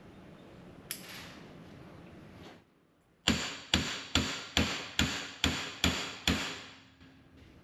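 Hammer striking metal eight times in quick, even succession, about two and a half blows a second, each with a short ring: hammering on a front axle shaft's U-joint and yoke while the new U-joint is being seated.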